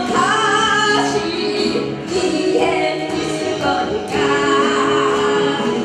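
A woman singing a Korean song into a microphone over an amplified backing track, in phrases with short breaks between them.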